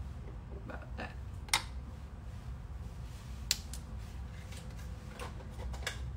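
A few scattered sharp clicks and taps: a plastic measuring spoon and a spatula knocking against a plastic blender jar as miso paste is scraped in. The two clearest come about one and a half and three and a half seconds in, over a steady low hum.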